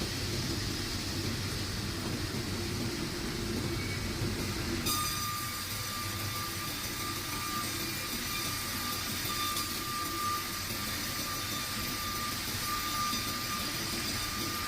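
Sawmill machinery running steadily. About five seconds in the sound changes abruptly and a steady high-pitched whine sets in and holds.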